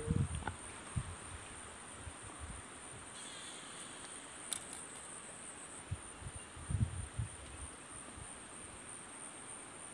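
Insects chirring steadily at a high pitch, with a few short low thumps about a second in and again around six to seven seconds.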